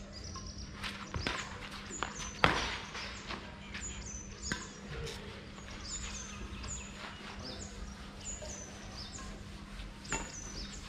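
Badminton rackets striking a shuttlecock in a rally: a series of sharp hits, the loudest about two and a half seconds in, then a long gap before another near the end. Short high chirps repeat throughout.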